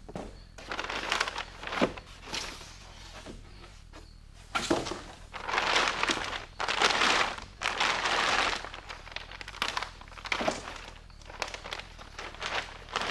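Rustling and crinkling of material being handled in bursts, loudest in the middle, with a few sharp knocks in between.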